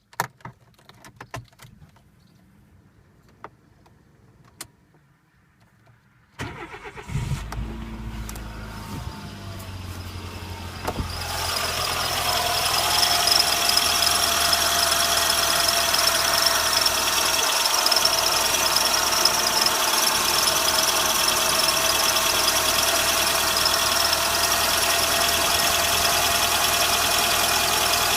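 A few faint clicks, then a Renault Sandero's engine cranks and starts about six seconds in and idles. From about eleven seconds in the alternator belt squeals loudly and steadily over the idle, a high whistle that does not let up. It is the belt whistling on a cold engine at 55,000 km.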